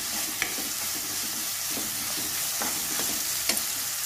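Grated onion, tomato and slit green chillies frying in oil in a pan, with a steady sizzle. A steel spatula scrapes and knocks against the pan about four times as the mixture is stirred.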